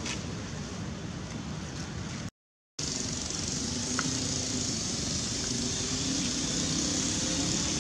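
Steady outdoor background noise with a faint low hum, cut off by a half-second dropout to silence about two seconds in.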